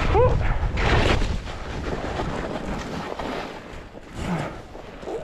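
Wind rushing over a helmet-mounted GoPro's microphone during a ski run, with the hiss and scrape of skis on snow. It is loudest at first and eases off after about two seconds, with a brief squeaky note right at the start.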